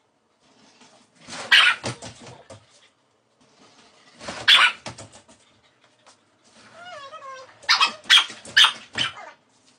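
Dogs barking in single sharp barks, then a wavering whine followed by a quick run of barks near the end.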